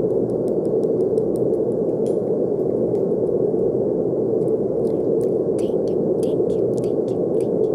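Steady brown noise: an even, deep rushing hiss with most of its weight in the low and middle range and little top end. It stays constant throughout, with faint scattered ticks above it.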